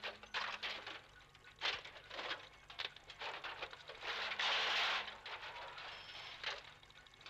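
Irregular electrical crackling and clicking, with a longer burst of hiss about four seconds in, as a robot arm works inside a bundle of cables.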